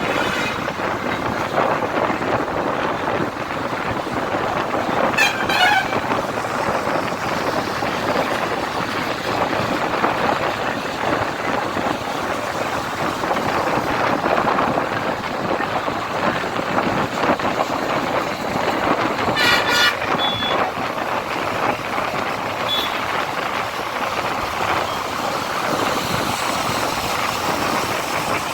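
Steady road traffic noise with vehicles passing, and a horn honking about five seconds in and again about twenty seconds in.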